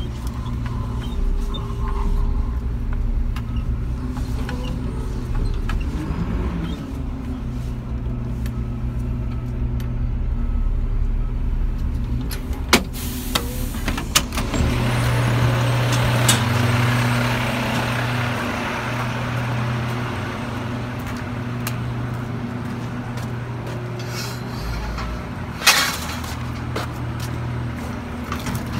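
Mack garbage truck's diesel engine running steadily, heard from inside the cab, with a few sharp clicks around the middle and a short burst of hiss near the end.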